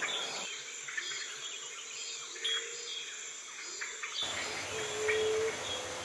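Rainforest ambience: steady insect buzzing with scattered bird calls, including a short held note about five seconds in. The background changes abruptly about four seconds in.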